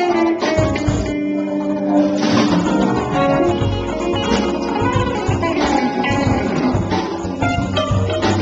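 A semi-hollow-body electric guitar played live: a continuous run of picked notes and chords.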